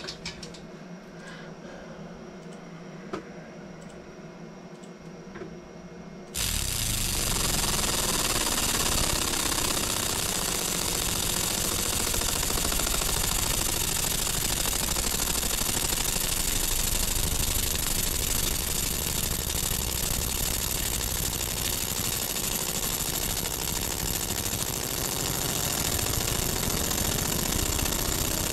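Laser engraver marking a copper coin. After faint room tone, a steady hissing noise starts suddenly about six seconds in and holds evenly as the laser engraves the design.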